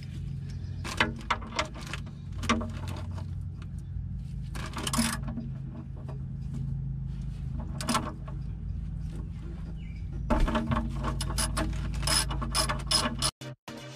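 Ratchet wrench clicking in short runs, with small metal knocks, as the oil drain plug is loosened on a Mercruiser 3.0 engine; a fast run of clicks comes near the end. A steady low hum runs underneath.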